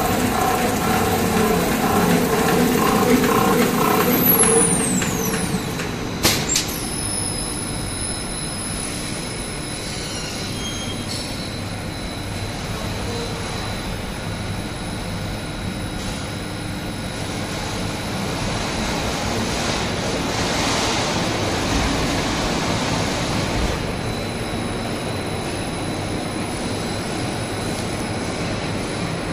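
Label finishing machine running, its rollers and units carrying the label web through. The running is louder and rhythmic at first; a high whine falls away about four seconds in, followed by a couple of sharp knocks, and then the machine runs on with a steady noise.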